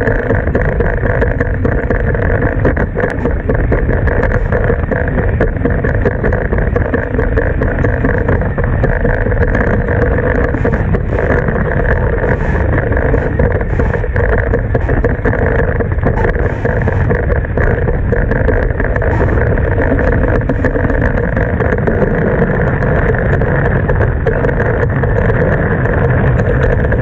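International Moth dinghy sailing up on its hydrofoils at speed: a steady rush of wind and water over a constant hum.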